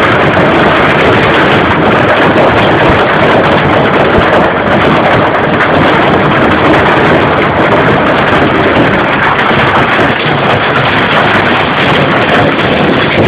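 Hailstorm: hail and heavy rain pelting down on a concrete yard and roofs, making a loud, dense, unbroken noise.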